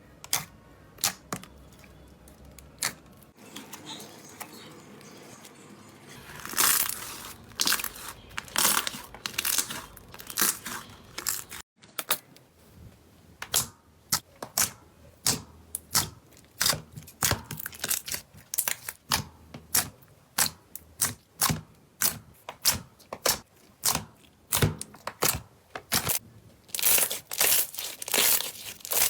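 Slime being worked, giving sharp, sticky pops and crackles at a quick, uneven pace of about two or three a second, with a brief gap about twelve seconds in.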